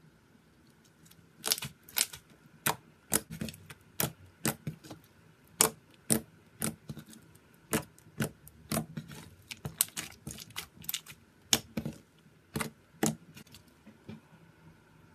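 Pink slime being pressed and poked by hand, giving a string of sharp clicking pops from trapped air, about two or three a second. The pops start about a second and a half in and stop shortly before the end.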